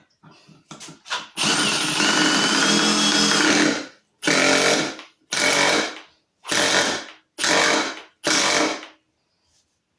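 Milwaukee M18 Fuel Surge hydraulic impact driver driving a lag bolt into undrilled wood: one long run of about two and a half seconds, then five short bursts on the trigger. The bolt is going in hard, and the driver struggles to sink it.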